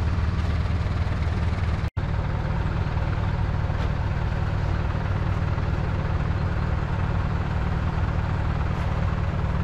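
A motor vehicle engine idling steadily, its low hum even throughout, with a momentary dropout about two seconds in.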